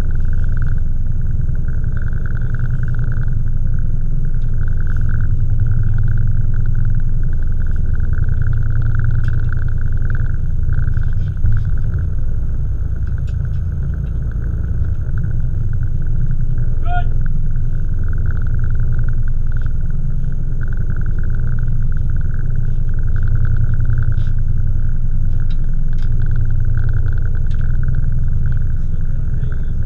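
Boat engines running with a steady low rumble. Faint clicks are scattered throughout, and a short high squeak that rises in pitch comes about two-thirds of the way through.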